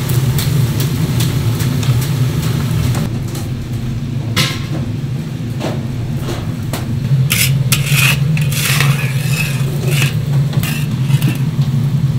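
Hot oil bubbling in a cauldron deep fryer over a steady low rumble, with metal clinks and scrapes from the wire strainer and mesh frying basket, mostly between about four and nine seconds in.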